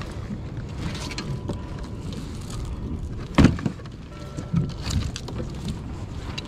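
Crabs being handled in a wire-framed net crab pot on a kayak: steady rustling and scraping, with a sharp knock about three and a half seconds in and a lighter one near five seconds.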